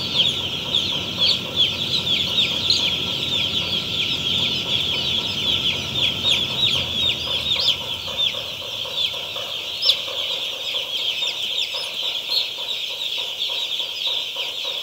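A shed full of thousands of day-old chicks peeping together: a dense, continuous chorus of short, high chirps. A low hum underneath fades out about halfway through.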